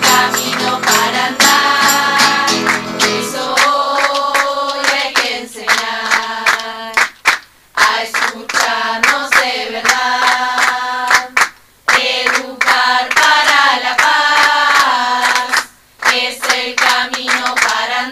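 A song: voices singing together over instrumental accompaniment, breaking off briefly three times.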